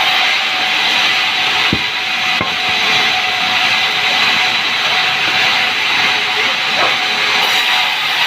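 Sawmill saw running through timber: a steady, loud hissing noise, with a couple of short knocks about two seconds in.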